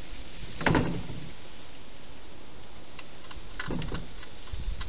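Hedgehog feeding inside a clear plastic feeding box: a scraping knock just under a second in, then a cluster of sharp clicks and crunches around four seconds in, over a steady hiss.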